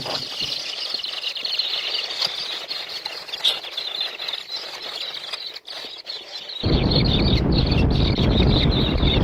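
Many birds chirping and chattering at once, a dense overlapping twitter. About two-thirds of the way through, a loud low rumble starts suddenly under the chirping.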